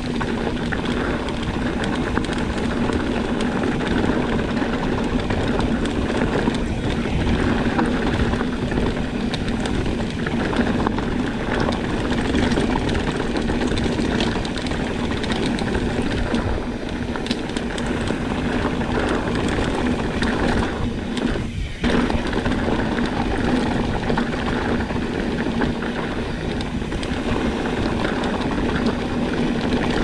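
Steady vehicle running noise: a constant low hum under a continuous rushing noise, with a brief dip about 22 seconds in.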